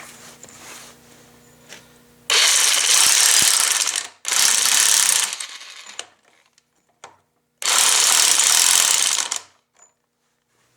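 Mastercraft 7.5-amp corded 1/2-inch electric impact wrench hammering on a nut in three bursts of one to two seconds each, the second trailing off.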